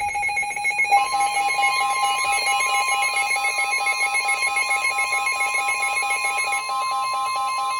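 Emergency Alert System attention tones announcing a severe thunderstorm warning: electronic beeping tones, joined about a second in by a steady high tone that holds on.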